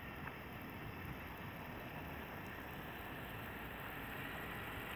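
Small electric motor and gears of a toy RC truck whining faintly and steadily as its spinning wheels churn through pond water.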